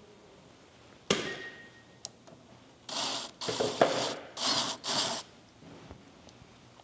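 A sharp metal clank with a brief ring, then four short bursts of a cordless drill boring into the canopy camper's side panel.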